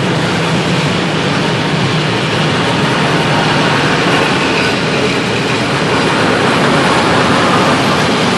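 Freight train of covered goods wagons passing close by at speed: a steady, loud rumble and rush of steel wheels on the rails.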